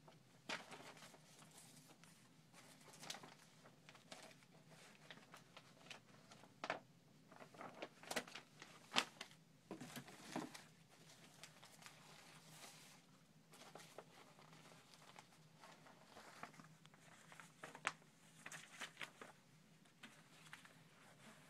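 Faint rustling and flapping of old paper magazines, photographs and clippings being handled and shifted on a pile, in irregular rustles with a few sharper ones around nine and eighteen seconds in.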